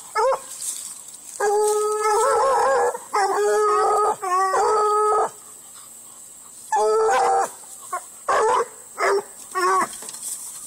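Bluetick coonhound baying: two long, drawn-out bawls, then a run of short chop barks.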